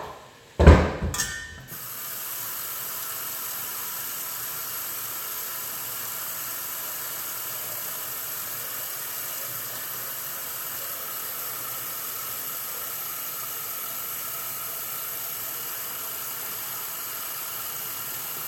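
A knock or two near the start, then tap water running steadily into a cooking pot, filling it to be heated, before cutting off at the very end.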